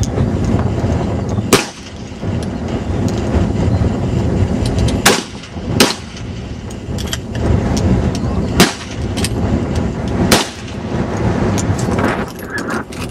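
Rifle shots from several classic service rifles firing from the prone line: five loud, sharp cracks at irregular intervals, with fainter shots from further down the line between them, over a steady low rumble.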